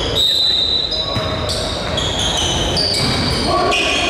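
Indoor basketball game sound: sneakers squeaking on the hardwood court in a run of short high-pitched squeaks, one held for about a second near the start, over a ball bouncing and the echoing din of the gym.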